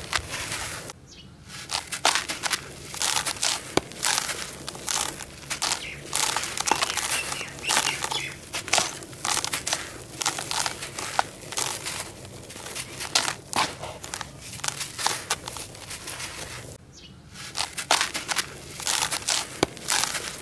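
Hands squeezing and crumbling handfuls of dry, grainy sandment (sand-and-cement mix): dense gritty crunching with the patter of grit pouring back down. It pauses briefly twice, about a second in and again a few seconds before the end.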